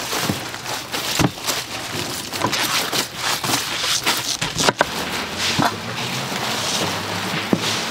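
Kimchi being made by hand: wet, crackling handling of seasoned cabbage, with scattered sharp knocks and clatter, the loudest about a second in and again a little before the five-second mark.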